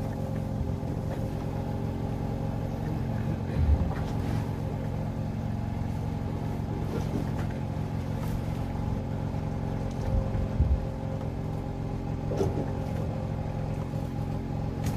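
A boat's engine running steadily at an even, unchanging speed, with a couple of dull knocks on the boat, one about four seconds in and another about ten seconds in.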